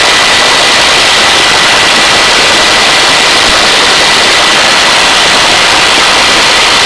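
Helicopter hovering: a loud, steady rush of rotor and turbine noise with a thin, steady high whine.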